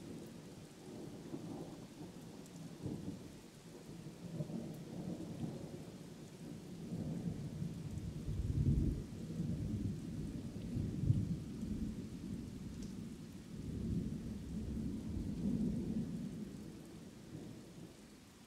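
Rolling thunder from a night thunderstorm: deep rumbles that swell and fade several times, the loudest about halfway through, over a faint steady hiss of rain.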